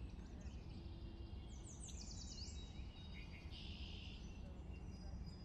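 Small birds chirping faintly, with a quick run of descending notes about two seconds in and a short buzzy call near four seconds, over a low steady rumble.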